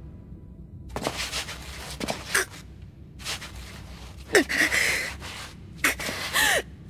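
A boy's voice straining with effort: about five grunts and gasps through gritted teeth, the longer, louder ones in the second half.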